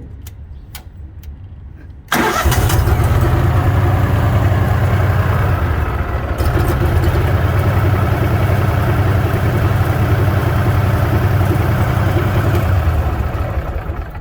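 Prochem Legend truckmount's Kohler engine starting up about two seconds in with a sudden loud rush, then running steadily, freshly refilled with oil; the sound drops away near the end.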